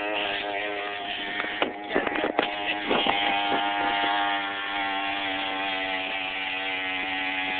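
Mini bike's small engine running at a steady speed while riding along a paved road, with a few short knocks and rattles in the first few seconds.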